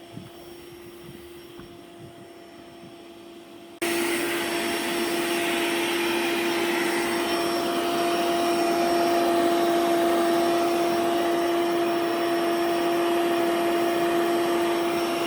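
Hoover OnePower cordless upholstery cleaner running steadily on a sofa, a constant motor hum with airy suction hiss. About four seconds in it abruptly gets much louder and stays steady.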